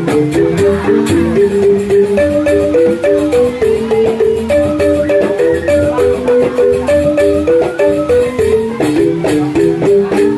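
Balinese rindik, bamboo xylophones struck with mallets, playing a quick, repeating melodic pattern of short ringing notes over low pulses.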